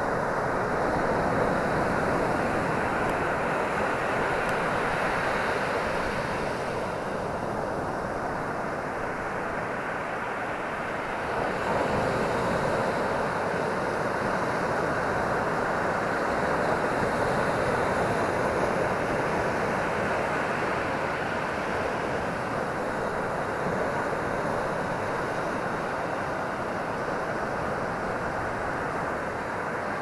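Ocean surf breaking and washing up a sandy beach: a steady rushing wash of waves, swelling as a wave crashes about twelve seconds in.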